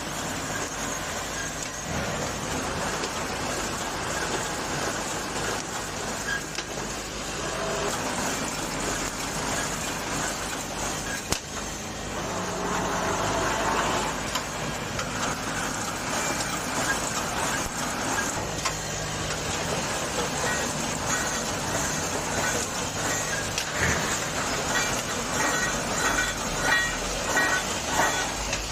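Automatic welded wire mesh welding machine running: a steady mechanical noise with scattered sharp clicks, and a busier run of short clanks in the last third.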